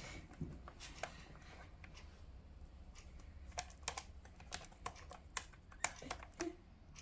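Cockatiels' beaks nibbling and cracking at a treat: faint, irregular small clicks, coming more often in the second half.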